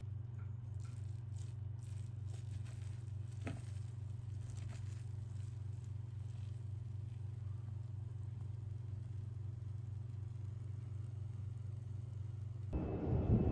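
A steady low hum with faint scattered crackles and light scrapes. Near the end it cuts abruptly to a louder rushing rumble.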